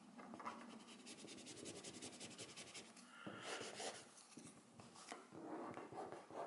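Plastic wrap squeegee scraping and rubbing across 3M 1080 vinyl wrap film on a car trunk lid, working out air bubbles. The strokes are faint, with a rapid ticking scrape from about a second in and a louder stroke midway.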